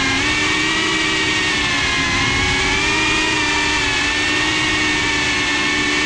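A GePRC CineLog 35 cinewhoop FPV drone's motors and ducted propellers whining steadily, heard from the camera on board, over the rushing noise of the prop wash. The pitch wavers slightly with the throttle.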